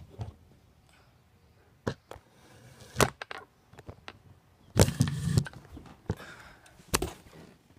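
Handling noise from a telescoping metal selfie stick and the phone mounted on it: scattered sharp clicks and knocks as it is gripped and moved, the loudest cluster about five seconds in.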